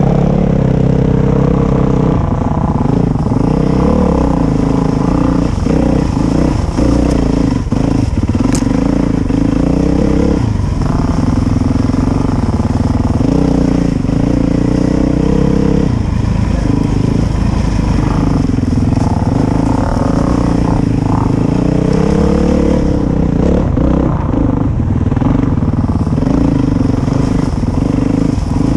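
Dirt bike engine running hard along a wooded trail, its pitch rising and falling repeatedly as the rider works the throttle and gears, with a sharp click about eight seconds in.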